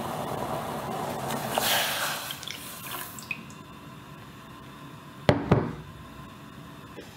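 Tea simmering in a saucepan, then milk poured in with a splashing, rushing sound about a second and a half in. The simmer falls quiet after the pour. Two sharp knocks come about five seconds in.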